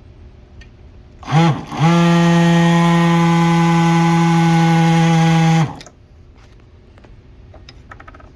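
Washing machine drain pump spun up as an AC generator, apparently by a power drill: a hum that rises in pitch, dips briefly, rises again, holds one steady pitch for about four seconds, then stops suddenly.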